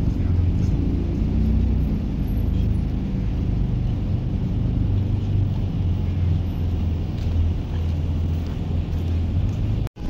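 Low, steady rumble of a vehicle engine running close by, over general street noise. The sound cuts out for an instant near the end.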